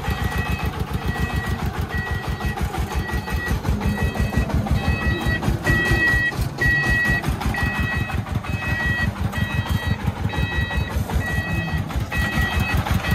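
A diesel vehicle engine running with a rapid, steady chugging, while a reversing alarm beeps at a steady pace a little under twice a second.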